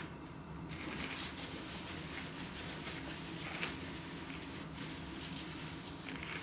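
Faint crunching and chewing of crisps in the mouth, a few soft crunches over a low steady hum.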